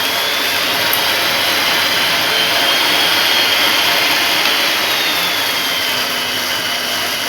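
Electric hand mixer's motor running steadily with a high whine that rises slightly mid-way, then eases back. It is running normally again on its speed control after the repair of a fault that made it run flat out the moment it was plugged in.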